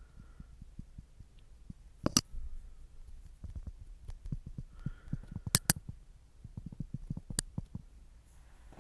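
Close-miked ASMR tapping: many soft muffled taps and rubs on the microphone, broken by a few sharp clicks, one about two seconds in, a quick pair past the middle and one more near the end.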